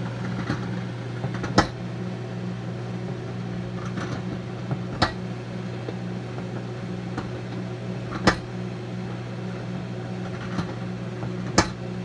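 Microwave oven running with a t-shirt and pants inside: a steady low hum, with a sharp click about every three seconds.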